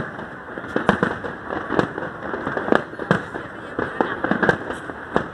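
Fireworks display: sharp bangs and cracks going off irregularly, several each second, over a steady noisy background.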